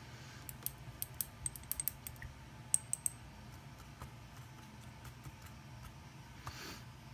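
A quick run of small, sharp clicks and taps of hard objects, a few with a brief high ring, over the first three seconds, then a short soft hiss near the end.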